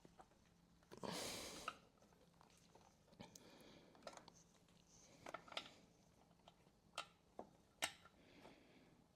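Faint workshop handling noise: scattered small clicks and light knocks of parts and tools being handled, with a short rustle about a second in.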